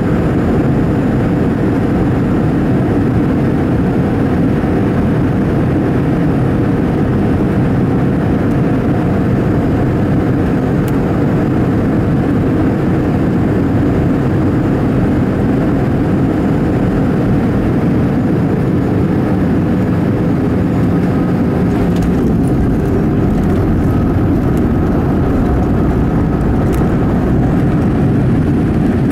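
Cabin noise of a Boeing 737-400 with CFM56 engines on final approach: a steady rush of engines and airflow with a faint steady whine that fades out. About 22 seconds in comes a sharp thud of touchdown, then a heavier rumble as the wheels roll on the runway with the ground spoilers raised.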